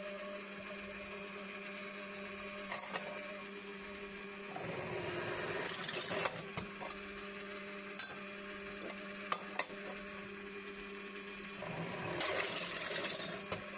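Electric drill motor running steadily, growing louder and rougher twice as the bit bites into metal to bore bolt holes, with a few sharp clicks; the motor stops at the very end.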